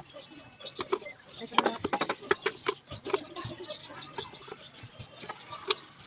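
Irregular clicks, taps and scrapes of plastic bottle feeders being handled and shifted on wooden boards, busiest in the first half, with one sharper knock near the end.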